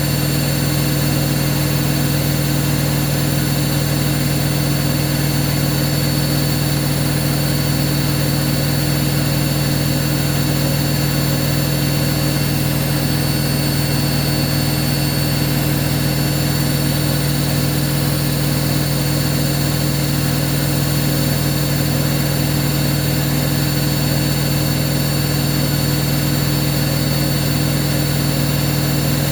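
Hoover washing machine running with a loud, unchanging low hum, a behaviour the owner calls the machine having gone haywire.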